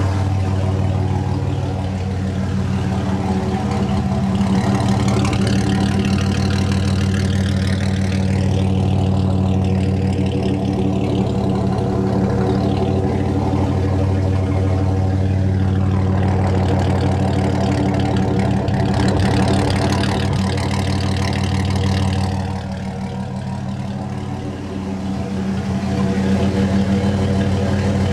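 1997 Dodge Ram 1500's 3.9-litre Magnum V6 idling steadily through a straight side-exit exhaust with no muffler and a gutted catalytic converter.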